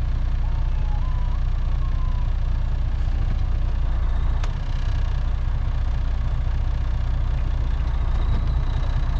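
Western Star semi truck's diesel engine running steadily, heard from inside the cab as a low rumble. A faint falling tone repeats a few times near the start, and there is a single click about four and a half seconds in.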